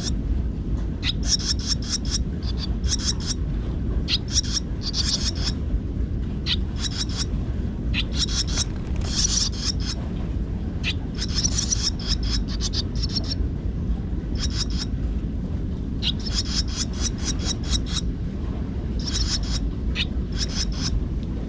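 Swallows twittering in quick bursts of short, high chirps every second or two, over a steady low rumble.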